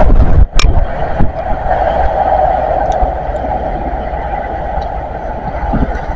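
CrossCountry HST (InterCity 125) running away along the line, the drone of its Class 43 power car's diesel engine and the rumble on the rails fading steadily as it recedes.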